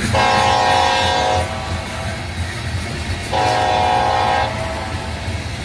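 Locomotive air horn sounding two blasts of about a second each, a couple of seconds apart, over the steady rumble of a freight train's hopper cars rolling past.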